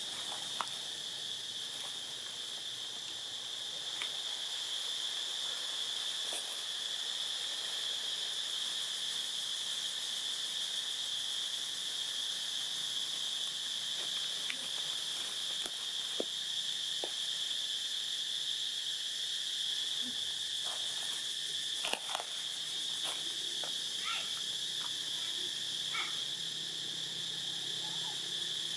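Steady, high-pitched drone of a chorus of insects. A few short, faint chirps and clicks sound over it, mostly in the second half.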